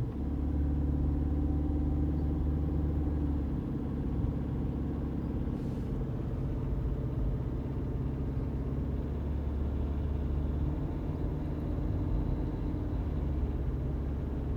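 Car driving on a road, heard from inside the cabin: a steady low rumble of engine and tyre noise.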